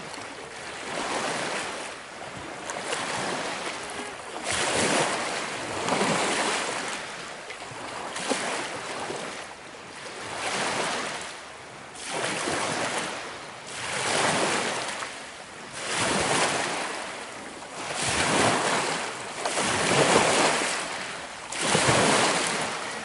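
Small lake waves washing up against a rocky shore, swelling and fading every couple of seconds.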